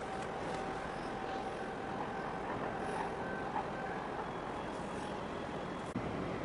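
Steady outdoor harbour-side noise: a low rumble of distant engines and traffic with a faint steady whine, and a short click near the end.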